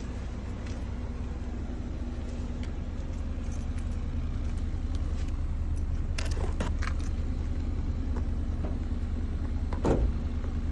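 Vehicle engine idling with a steady low hum. A few light metallic clinks come about six to seven seconds in, and a single thump near the end.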